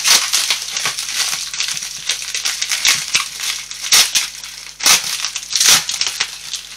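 Clear plastic packaging bag crinkling and crackling as it is pulled open and handled to get a product out, with irregular sharp crackles.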